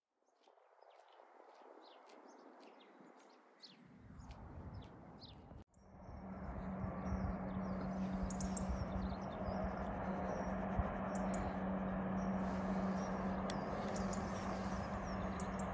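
Small birds chirping in near quiet. From about six seconds a steady low hum and rumble sets in: a distant diesel multiple unit, a Class 170 and Class 158 coupled, approaching.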